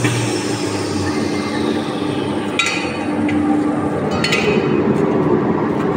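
CNC wood router running with a steady mechanical hum; a high whine falls in pitch and fades in the first second. Three sharp clicks come in the second half.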